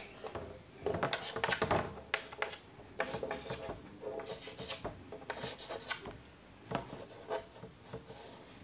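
Chalk scraping on a blackboard in a series of short strokes, first drawing a straight line along a wooden ruler, then writing letters.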